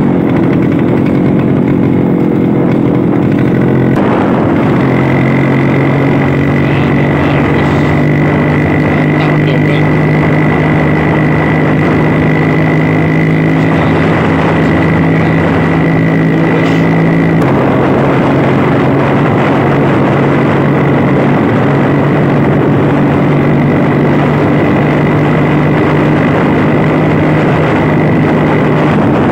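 Vintage Vespa scooter's two-stroke single-cylinder engine running under way at a steady cruise. Its note shifts about four seconds in and again a little past the middle, and a thin steady whistle sits over it from about five seconds in.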